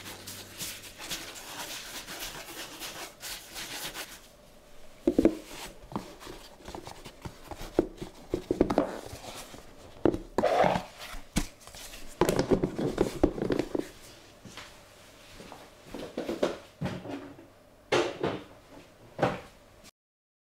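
Hands working soft, high-hydration pizza dough on a floured marble board: separate pats, presses and rubs of the sticky dough against the stone, in short bursts a second or so apart from about five seconds in.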